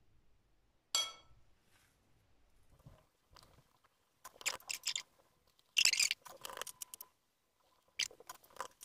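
Hands pressing and gathering soft, sticky yeast dough around a cheese filling and rounding it into a ball: crackly, squishy handling noises in three short bursts, the loudest in the middle. One sharp click with a brief ring comes about a second in.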